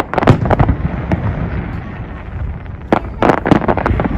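Fireworks going off: a quick run of sharp bangs and crackles at the start, a lull with a low rumble, then another cluster of cracks about three seconds in.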